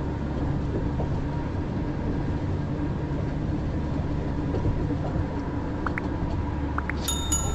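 Steady road and engine noise heard inside a car cruising on a highway, with a low drone. Near the end, a sudden sharp sound with a high ringing tone cuts in.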